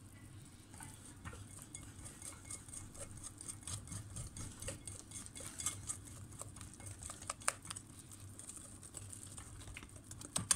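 Wire whisk beating cake batter by hand in a glass bowl, its wires tapping the glass in quick, uneven clicks.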